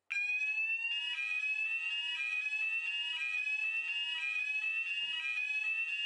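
Building fire alarm sounders set off by a test key in a manual call point during a weekly alarm test. They come on suddenly with a loud tone that sweeps upward and snaps back about once a second.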